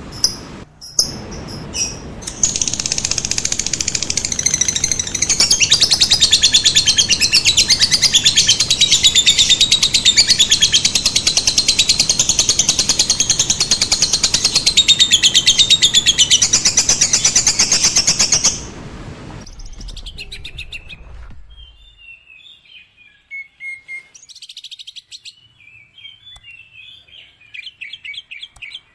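Lovebird giving a long, very rapid chattering trill (ngekek): a dense, unbroken stream of high notes that runs for about sixteen seconds and stops abruptly. A steady low noise lies underneath and fades out a few seconds later. After that come only scattered, softer chirps.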